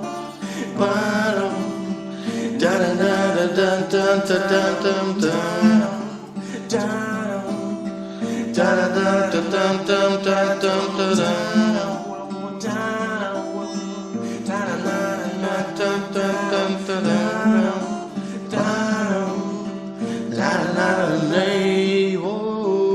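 Music: a wordless stretch of a song, with steady low notes under a wavering, gliding melody line and plucked guitar.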